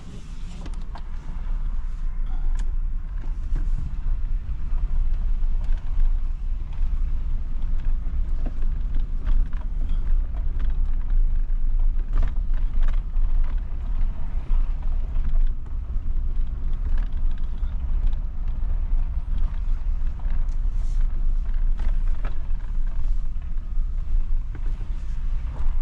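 Car driving along, heard from inside: a steady low rumble of road and engine noise, with scattered light creaks and ticks.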